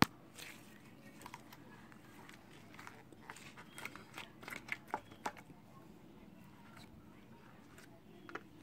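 Glitter slime being squeezed and kneaded by hand in a plastic tub: a string of small wet clicks and pops, busiest around the middle, over a low steady hum.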